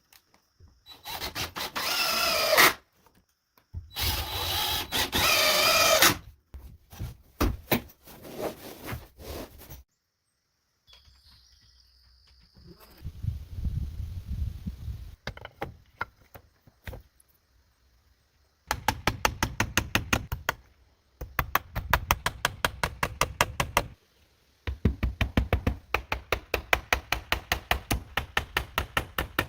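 Carpentry tool work on wood. Two short bursts of a motor with a wavering pitch come first, then scattered knocks, then a long run of fast, even strokes at about six a second in three stretches.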